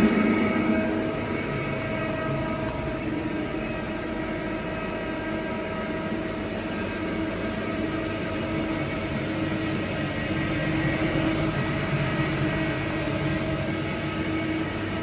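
Mazak SQT CNC lathe running: a steady machine hum and whine with several fixed tones from its spindle and axis drives, louder at the very start, then easing and swelling slightly again about ten seconds in.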